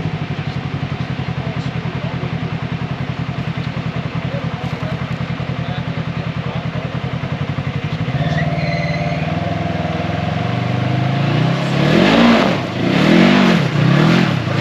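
Off-road vehicle engine idling with an even pulse, then picking up after about eight seconds. Near the end it revs in short rising-and-falling bursts about once a second, as when throttle is fed in and out on a climb.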